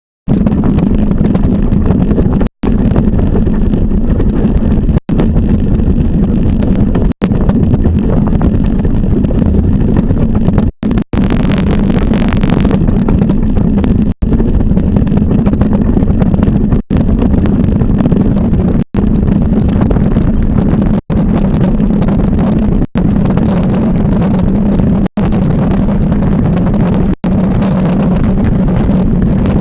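Ice yacht sailing at speed: a steady, loud rush of wind with a low rumble underneath, cut off for an instant about every two seconds.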